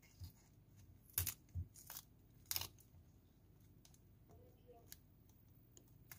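Cauliflower florets snapped off the head by hand: a few sharp cracks and tearing sounds, the loudest a little over a second in and about two and a half seconds in, with soft rustles and small ticks between.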